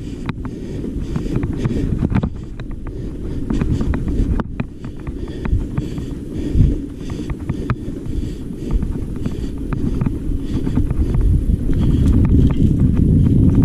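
Wind buffeting the microphone during a mountain bike ride on a rough trail, with many scattered clicks and knocks from the bike rattling over bumps; the rumble grows louder near the end.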